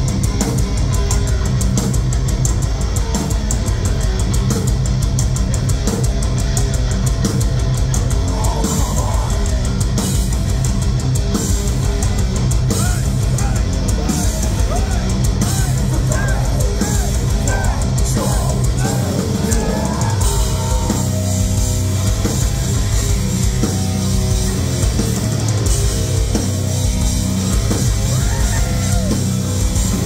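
Heavy metal band playing live at full volume: distorted electric guitars and bass over dense, driving drumming, with bending lead guitar lines in the middle and the riff shifting to held notes about two-thirds of the way through.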